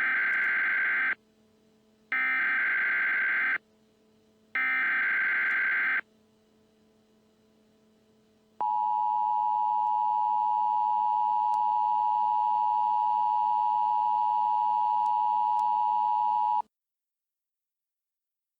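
Emergency Alert System SAME header: three short bursts of screeching digital data tones, each about a second and a half long, a second apart. About two and a half seconds later the steady two-tone EAS attention signal sounds for about eight seconds and cuts off suddenly.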